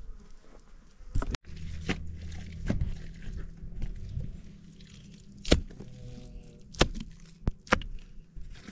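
About half a dozen scattered knocks and thuds over low background noise.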